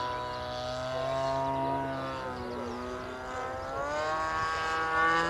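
Quarter-scale Yak 54 RC plane's 26 cc single-cylinder two-stroke petrol engine (CRRC Pro GF26i) and propeller in flight. Its note holds, falls a little after about two seconds, then climbs higher near the end.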